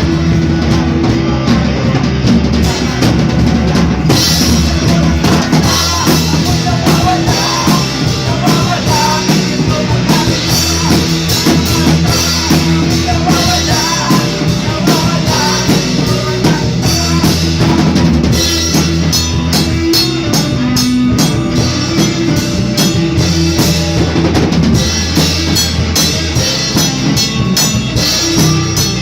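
A band jamming: a drum kit keeps a steady beat under sustained low notes and other instruments, loud and continuous.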